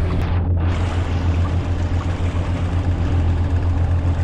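Steady low hum with rushing water and wind as a sailing catamaran moves through open sea, its wake foaming astern.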